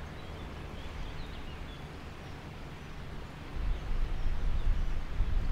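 Outdoor ambience: an uneven low rumble that grows louder about three and a half seconds in, with a few faint, short, high bird chirps in the first two seconds.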